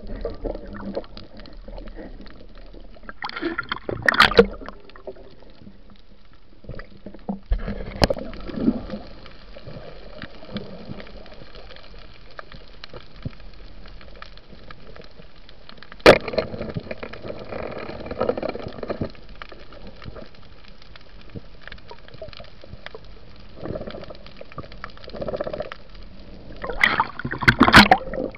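Underwater recording: a steady watery hiss with gurgling, a few louder bursts of bubbling and movement, and a sharp knock about halfway through. Near the end comes the loudest rush of bubbles.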